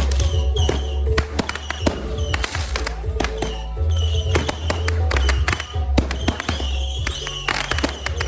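Fireworks crackling and popping in rapid, irregular bursts over loud music with a heavy, steady bass.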